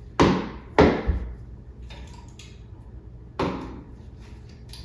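Three sharp metallic clanks, two in quick succession and a third a few seconds later, each fading out briefly: pliers and steel chain links knocking as links are pried open to shorten a chandelier chain.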